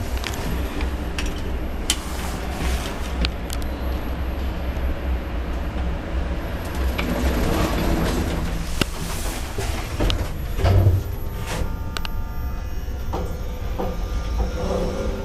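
Small machine-room-less passenger lift with a variable-frequency drive in operation: a steady low rumble of the car running, with scattered clicks and knocks from the car and its sliding doors.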